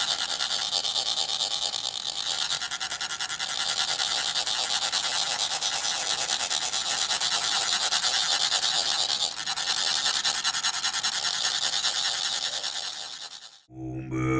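Metal chak-pur funnel being rasped with a metal rod: a steady, fast scraping that sets the funnel vibrating so the coloured sand trickles out. The scraping cuts off suddenly near the end, and chanting voices begin.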